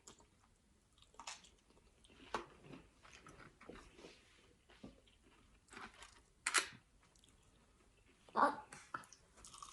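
Close-up chewing and biting of crispy fried food, a few short crunchy bites at irregular intervals, the loudest about two and a half seconds in and again past the middle.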